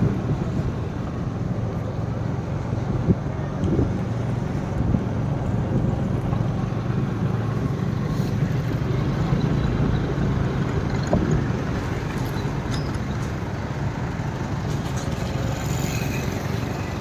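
Steady low engine drone and road noise from a moving road vehicle, with the sound of the surrounding street traffic.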